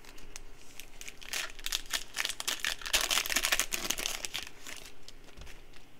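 A Panini Prizm football card pack's foil wrapper crinkling and tearing as it is ripped open by hand, with the crackling thickest about halfway through.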